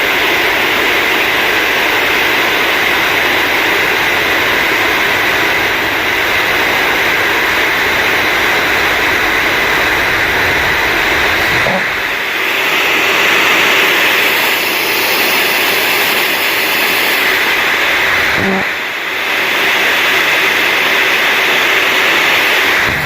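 Hair dryer running continuously: a loud, steady rush of air over a high motor whine. About 12 s in the low rumble drops away, and the sound briefly dips and comes back around 18–19 s.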